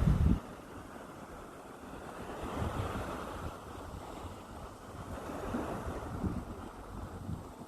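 Calm sea: small waves washing onto the beach, the wash swelling gently about every three seconds. A gust of wind buffets the microphone at the very start and cuts off within half a second.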